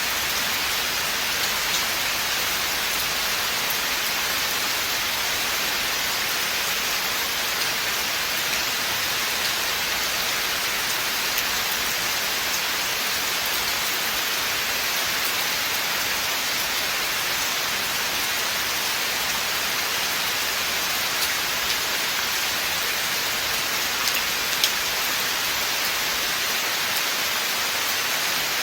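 Steady rain falling in a forest, a dense even hiss with a few sharper drop ticks standing out now and then.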